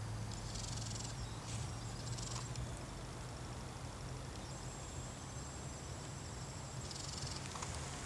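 Quiet woodland ambience: faint high chirps in the first couple of seconds and again near the end, a thin steady high tone through the middle, over a low steady hum.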